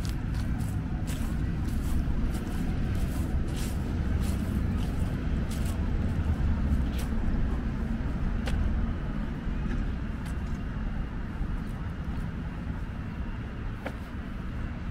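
Road traffic on a city street, a vehicle passing close by: a low rumble that swells near the middle and then fades, with scattered light ticks over it.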